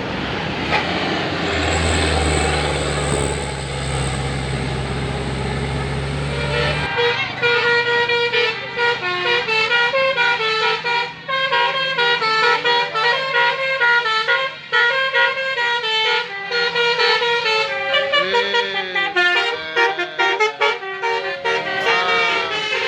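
A bus's 'telolet basuri' musical horn plays a melody of quick stepped notes, with some gliding notes toward the end. For the first several seconds a steady low engine drone comes before the tune.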